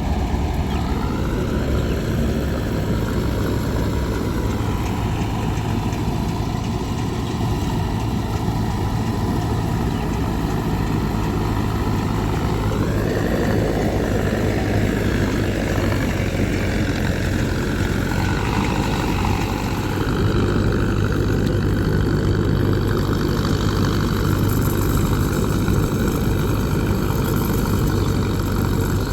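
Heavy diesel engine of farm machinery running steadily under load. Its note rises about a second in, settles back, rises again near the middle and drops once more.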